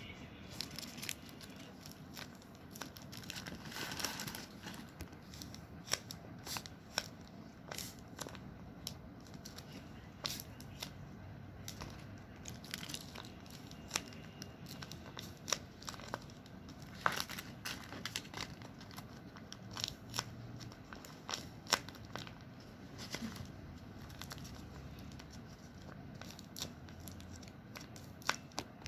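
Paper squishies being handled and squeezed: the paper and tape crinkle and rustle, with many irregular sharp crackles.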